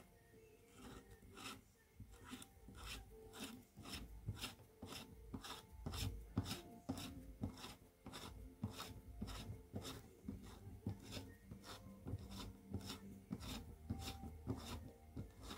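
Repeated hand scraping strokes, evenly paced at about two and a half a second.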